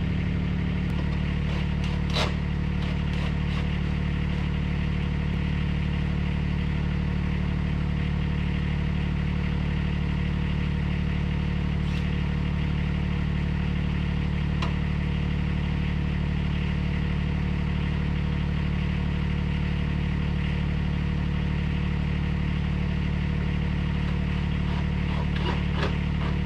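An engine running steadily at an even pitch, with a few short clicks and clatters, the loudest about two seconds in.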